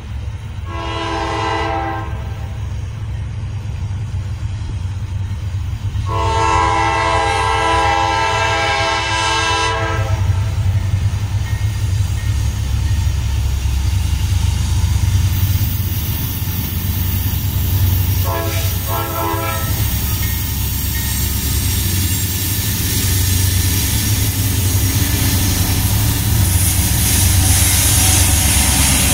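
A diesel freight train's lead locomotive, NS 4536, a GE AC44C6M, sounds its air horn: a short blast, then a long blast, then two quick short toots. Under the horn the low rumble of the diesel engines grows louder as the locomotives pass, with wheel and rail noise rising near the end.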